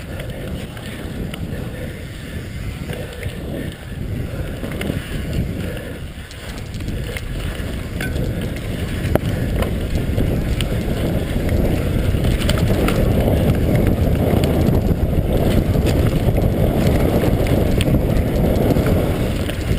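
Mountain bike riding down a dirt trail, heard from a camera on the rider: a steady low rumble of tyres and wind on the microphone, with scattered clicks and rattles from the bike. It grows louder about halfway through.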